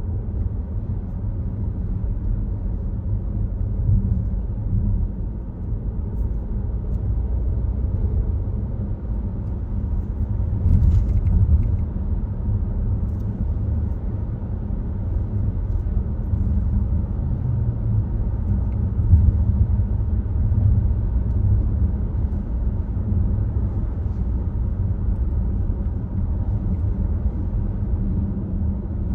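Volvo XC60 driving on the road: a steady low rumble of tyre and engine noise that swells and eases slightly.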